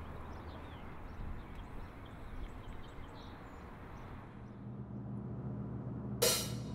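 Quiet outdoor ambience with faint bird chirps. A steady low hum comes in about two-thirds of the way through, and near the end a single sharp drum-kit hit with a short ringing decay opens a drummer's count-in to a rock song.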